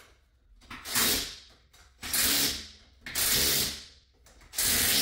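Cordless drill with a socket spinning the lug nuts onto a car wheel's studs, one nut after another in four short bursts about a second apart.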